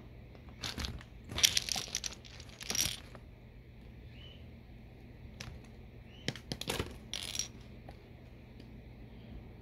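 Plastic Lego bricks clattering and clicking against each other as they are handled, in two spells of rattling: one in the first few seconds, with the loudest clack, and another past the middle.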